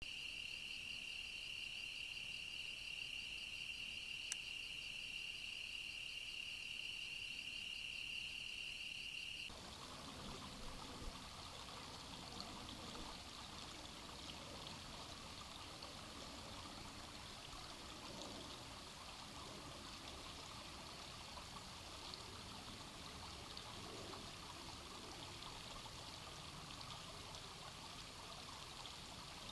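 Night insects trill steadily, a high shrill chorus with a faster pulsing layer above it, and one short click about four seconds in. After about ten seconds it changes abruptly to a shallow creek running over a rocky bed, a steady rush of water.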